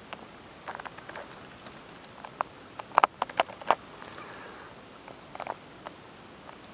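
Light handling clicks and taps as a plastic ruler is moved against a cut pummelo with a rubber-gloved hand, with a quick cluster of sharper clicks about three seconds in.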